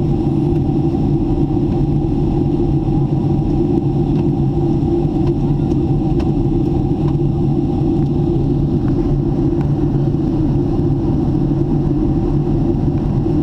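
Jet airliner cabin noise in flight, heard from a window seat: a steady, loud drone of the engines and rushing air, with a constant mid-pitched hum running through it.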